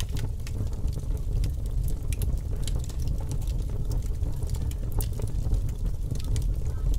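Fire crackling: irregular small pops and snaps over a steady low background rumble.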